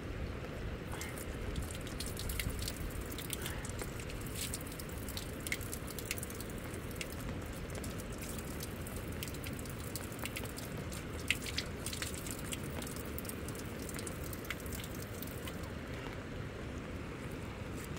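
Water dripping and pattering in scattered small ticks over a steady low rumble.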